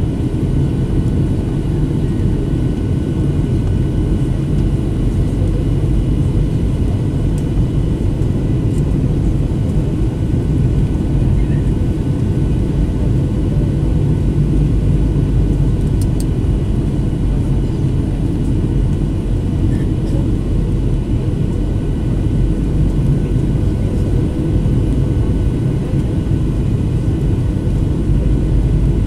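Steady cabin noise of a Boeing 737-800 in flight, heard inside the cabin: a low, even rumble of the CFM56-7B engines and rushing air, with faint steady whining tones above it.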